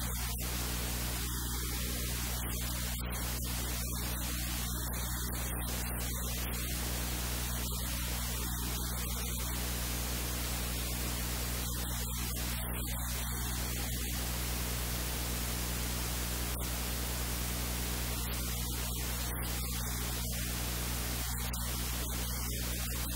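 Steady static hiss with a low electrical hum underneath, at an even level throughout.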